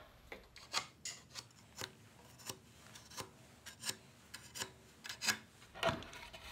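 Sharp pencil scratching along cherry wood in short, irregular strokes, tracing the outline of dovetail pins to mark out the joint.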